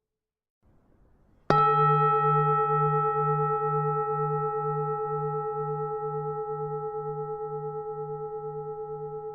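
A Buddhist temple bell struck once about a second and a half in, then ringing on with several overtones that die away slowly, over a low hum that wavers in a steady slow pulse.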